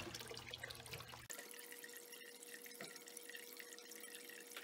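Faint trickling and dripping water. About a second in, a faint steady tone begins.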